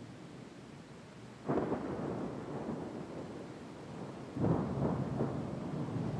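Thunder from a severe thunderstorm squall line: a sudden crack about a second and a half in and a second, louder one about three seconds later, each rumbling on afterward.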